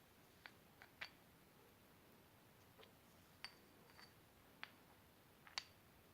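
About eight light, irregular clicks and taps of small hard objects, some with a brief metallic ring, the sharpest near the end, over an otherwise quiet room.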